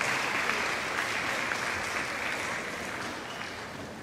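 Spectators applauding a won point, with many scattered claps that gradually die away.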